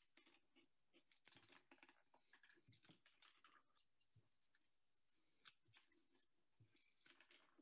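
Faint, scattered clicks and crunches of hand-held gardening shears snipping thin willow sticks one at a time, the clearest snips about five and a half and seven seconds in.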